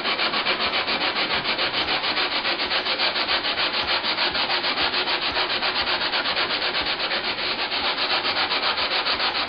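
A Japanese water stone's 1000-grit face being scrubbed back and forth on sandpaper in fast, even strokes: a continuous gritty rasping. The stone is being lapped flat, its high spots ground away.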